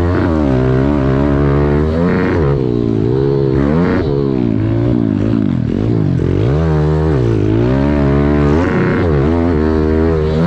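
Pit bike engine revving up and down under a rider's throttle, its pitch rising and falling every second or two, with deeper dips about five to seven seconds in.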